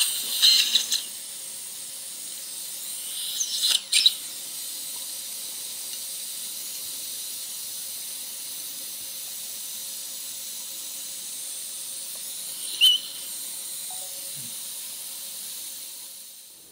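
Surgical suction in the patient's mouth, hissing steadily with a faint hum under it. A few brief clicks of metal instruments come near the start, about four seconds in, and again near the end.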